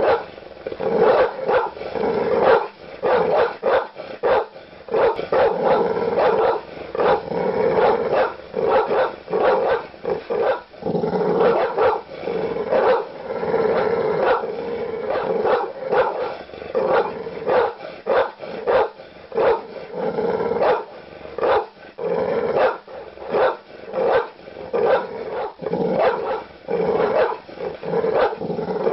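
A large dog barking aggressively in rapid, irregular deep barks, several a second, with growling between them.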